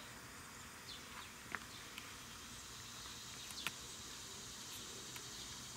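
Steady high-pitched insect chorus, with a few short falling chirps about two seconds apart.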